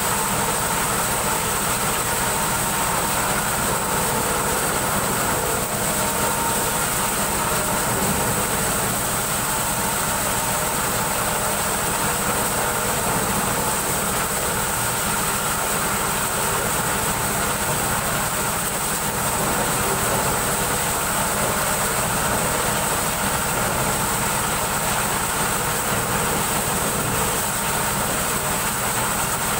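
Engine-driven corn sheller running steadily while shelling corn cobs: a constant mechanical drone with a steady high whine over it.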